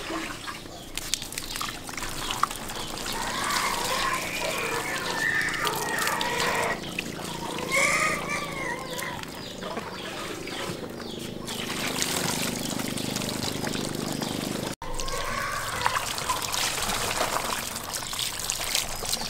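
Water poured from a plastic dipper over a scraped cow's head in a plastic basket, splashing and trickling, with the dipper dipped repeatedly into a large clay water jar.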